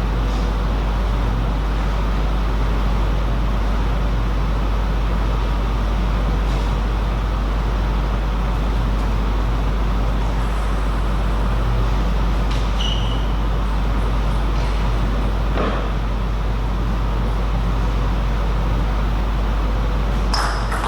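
Steady background noise, a loud even rush with a constant low electrical hum, broken by a few faint clicks. In the last moment a couple of sharp light knocks with short pinging tones come in, like a table tennis ball being hit.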